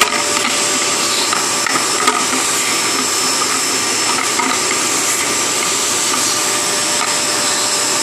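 Vacuum cleaner running steadily, its hose sucking waste toner dust out of a laser printer's toner waste bin, with a light knock about two seconds in.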